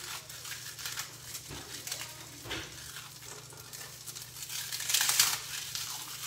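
Crunchy pork rinds being crushed by hand, crackling in many short bursts, with a louder burst about five seconds in. A steady sizzle of pork steaks frying in butter in a skillet runs beneath.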